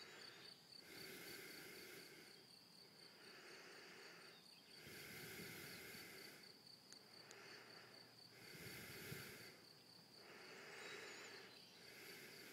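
Near silence: a faint, steady, finely pulsed high trill of crickets, with soft rushing swells of noise every couple of seconds.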